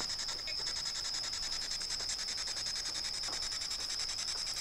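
Crickets trilling at night: one steady high-pitched chirr with a fast, even pulse that never breaks.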